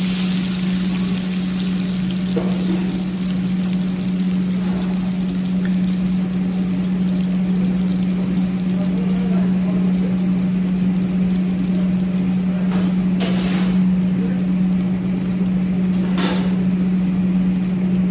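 Whole spices frying in hot oil in a large stainless steel pot, a steady sizzle, over a steady low hum. Two brief louder hisses come in the last third.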